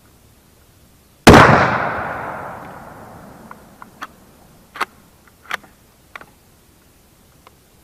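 A single gunshot about a second in, with a long echoing tail that dies away over about two seconds. A few short clicks and knocks follow.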